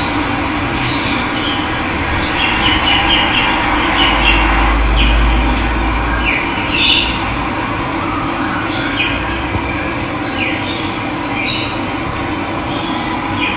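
Steady rush of running water with wild birds chirping over it in short, repeated calls. A low rumble swells underneath for a couple of seconds near the middle.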